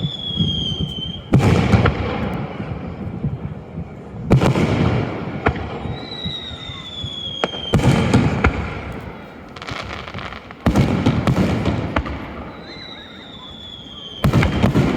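Aerial fireworks shells bursting: five loud bangs about every three seconds, each trailing off in a rumbling echo. Three of the bursts are each preceded by a whistle that slides slightly down in pitch.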